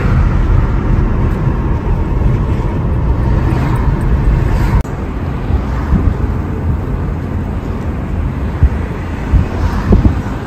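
A car driving: a steady low rumble of road and wind noise, dropping abruptly in level about five seconds in.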